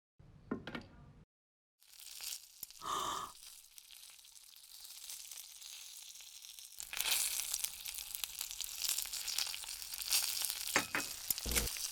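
Bacon and eggs frying in a hot pan, in foley. A quiet sizzle starts about two seconds in and grows into a loud, crackling sizzle about seven seconds in, with a short knock around three seconds and a few more near the end.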